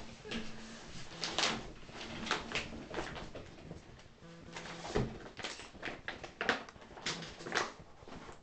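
Pen drawing on paper: short, irregular scratching strokes, one after another.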